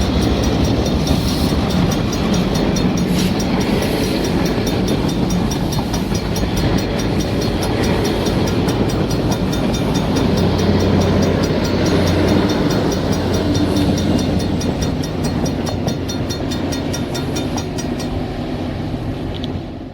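Ontario Northland Railway train rolling past close by: diesel locomotive running and cars clattering steadily over the rails.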